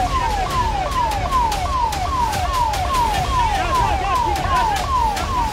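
Emergency vehicle siren sounding a fast, repeating falling wail, a little over two falling sweeps a second, over a steady low rumble with scattered clicks.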